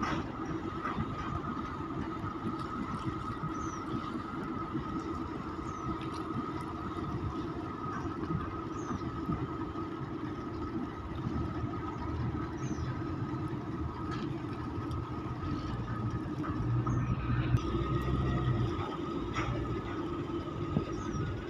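Steady mechanical drone of ship engines, a constant hum over a low rumble. The rumble grows stronger about halfway through and eases off a couple of seconds before the end.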